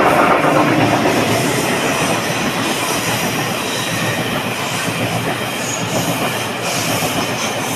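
A train passing by on the rails, its wheels running loud and steady, easing slightly after the first second or two.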